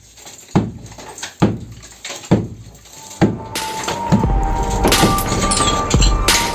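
Background music with a steady beat: four evenly spaced bass-drum hits open it, and fuller music comes in about halfway through.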